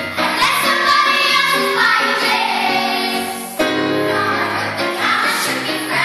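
Children's choir singing, with a strong new entry about three and a half seconds in.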